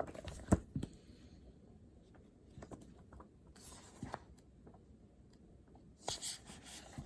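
Desk sounds from pen and paper: scattered light taps and clicks, a sharper click about half a second in, and two brief paper rustles, one midway and one near the end.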